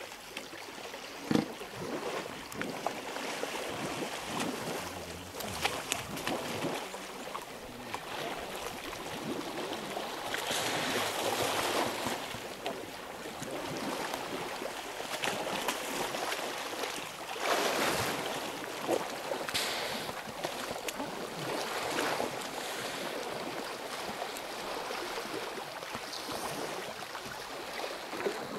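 African elephants splashing and sloshing through water as a herd wades and plays in a pool: a continuous wash of churned water that swells louder a couple of times, with a few short sharp splashes.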